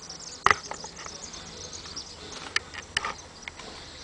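A few sharp clicks and knocks of a camera being handled: the loudest about half a second in, then a close pair near the end.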